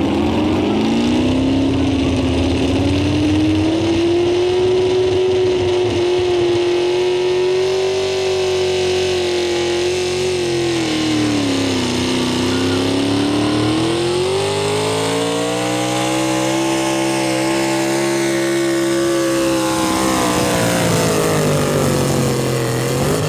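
Gas-engined pulling truck running at full throttle as it drags a weight-transfer sled. The engine note holds high, sags about halfway through, climbs back, then falls away near the end as the pull slows.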